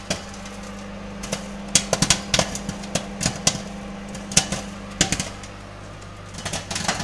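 Popcorn kernels popping inside a microwave roasting bag: sharp, irregular pops, sometimes several in quick succession, over the steady hum of the running microwave oven.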